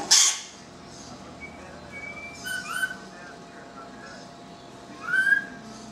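Lorikeet calling while it plays: a loud harsh squawk right at the start, then short whistled chirps and chatter about two seconds in, and a louder rising chirp near the end.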